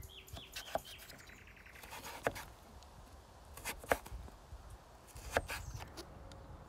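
Chef's knife slicing peeled butternut squash into fry-shaped sticks on a wooden cutting board. Each stroke goes through the firm flesh and ends in a short knock on the board, a handful of separate strokes about a second or more apart.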